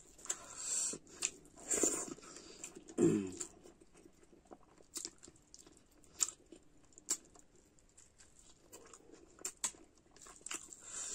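Eating rice by hand from a steel plate: wet chewing and sharp lip-smacking clicks scattered through, with two short cries falling in pitch about two and three seconds in.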